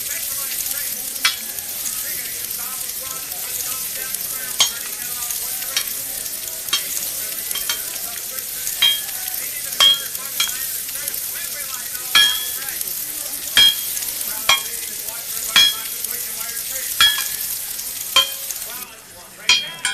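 Noodles sizzling in a hot wok, with a metal spatula striking the pan with a short ring about once a second as the mee is stir-fried. The sizzle drops away near the end.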